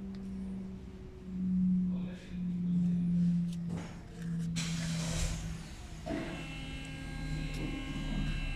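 A man humming a slow tune, low notes held about a second each and stepping down in pitch, with a brief hiss about five seconds in.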